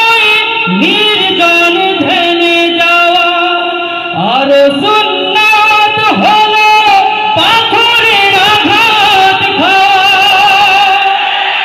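A man singing a Bengali Islamic devotional song into a stage microphone, in long held phrases with wavering, ornamented turns of melody.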